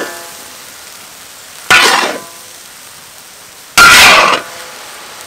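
Metal spatula scraping through fried noodles in a large wok, two loud strokes about two seconds apart, with a faint sizzle between them.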